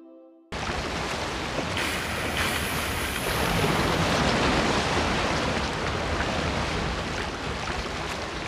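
Ocean waves and wind: a steady rushing wash of sea noise that starts suddenly about half a second in and cuts off abruptly at the end.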